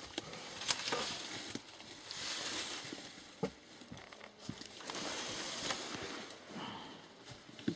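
Faint rustling and scraping with a few light knocks, heard through a concrete culvert pipe.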